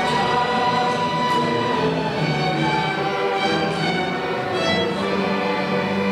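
Instrumental ensemble music, steady sustained notes that change in pitch, with a bowed-string, orchestral sound.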